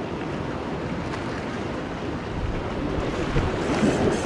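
Wind buffeting the microphone over ocean surf washing against rocks, a steady rushing noise that grows a little louder about two seconds in.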